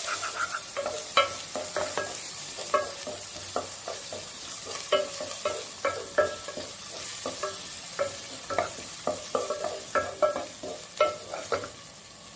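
Wooden spatula stirring and scraping onions and ginger-garlic paste frying in a coated pan, with irregular light knocks of the spatula against the pan, each ringing briefly, over a steady sizzle. The paste is being fried on medium flame until its raw smell is gone.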